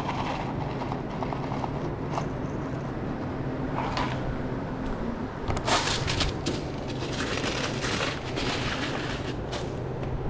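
A steady low hum under a background hiss, with a run of short clattering and crinkling handling noises from about five and a half seconds in.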